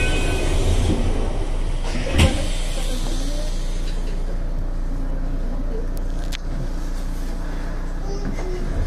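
Aonami Line electric train standing at a station platform, its onboard equipment humming steadily. A single thud about two seconds in is the doors shutting. Two faint clicks follow a few seconds later.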